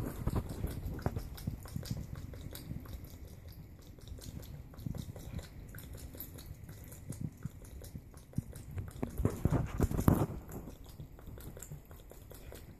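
A cat lapping water from a thin stream running from a bathtub faucet: a quick run of small wet clicks, louder for about a second some ten seconds in.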